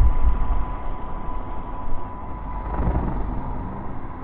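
Wind buffeting the microphone in uneven gusts, with a faint steady whine from the distant FlyWing FW450 V3 electric RC helicopter in flight.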